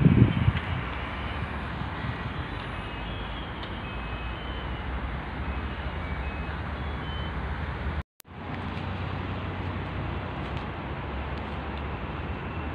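Steady hum of road traffic with motorbikes and cars, a low rumble under an even noise. The sound cuts out for a moment about eight seconds in, then the same steady noise carries on.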